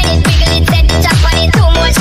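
Electronic dance music with a steady kick drum about four beats a second under layered synth lines.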